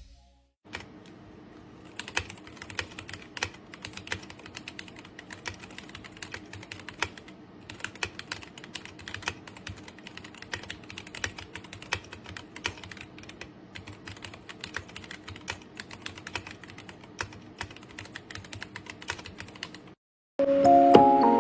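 Typing on a computer keyboard: rapid, irregular key clicks over a faint steady hum, starting about half a second in and stopping abruptly near the end.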